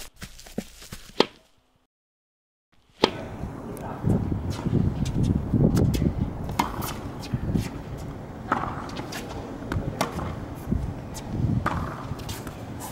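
Tennis balls struck by racquets on an outdoor hard court: a string of sharp pops every second or two over a low, steady background rumble, with children's voices. It begins after a few quick clicks and a short silence about two seconds in.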